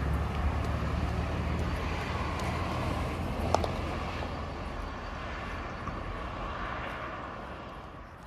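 A motor vehicle's engine and road noise, a low steady hum that fades away as it moves off into the distance, with a single sharp click about three and a half seconds in.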